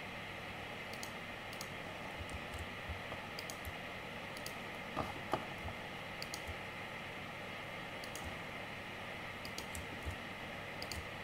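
Steady hiss of room tone with faint, scattered clicks from computer controls in use while editing, and two louder clicks close together about five seconds in.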